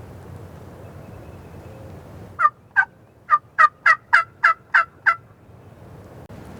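A series of about nine turkey yelps, evenly spaced at roughly three a second, over steady wind noise.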